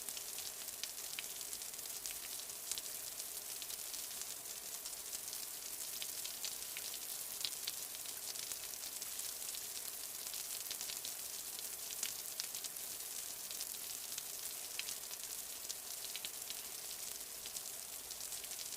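Light rain falling steadily: an even high hiss with many small scattered drop ticks.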